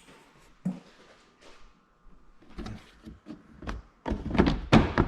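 Plastic interior trim panels and push-in clips being worked loose and handled: scattered light knocks and clicks, then a louder run of knocks and rattling from about four seconds in.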